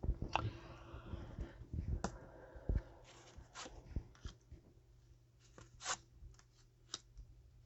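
Tarot cards being handled on a table, rustling for the first few seconds and then scattered light clicks and taps.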